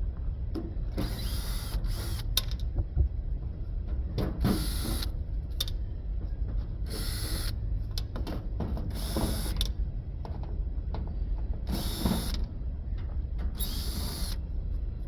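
Nuts being worked loose with a hand wrench: a short burst of metallic clicking and creaking every two seconds or so, about seven in all, over a steady low rumble.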